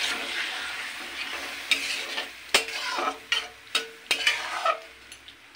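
A spoon stirring a potato and aubergine curry in a hot pan, with sizzling as water is added to the fried masala. Several sharp knocks of the spoon against the pan come through in the middle, and the sizzling dies down near the end.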